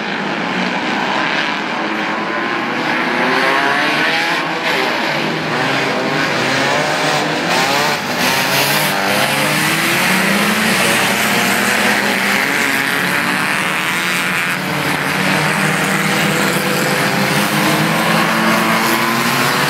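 A field of enduro race cars running together on a dirt track, many engines revving at once, their pitches rising and falling across one another. It grows louder over the first few seconds, then holds steady.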